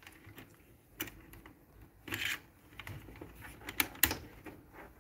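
Scattered light clicks and knocks of hands handling a plastic control box, wires and a circuit board on a workbench, with a brief rustle about two seconds in and two sharper clicks near four seconds.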